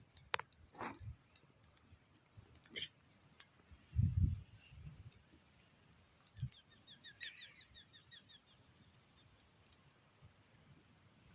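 Campfire crackling with scattered sharp pops, and a dull thump about four seconds in. Near the middle a bird gives a quick run of short chirps, about six a second.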